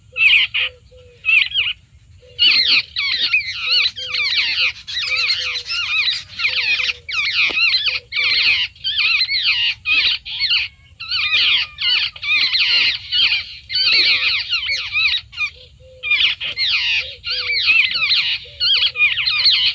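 Harsh, overlapping chattering squawks of charkhi chidiya (babblers), coming in dense bursts with short gaps. A faint short low note repeats underneath.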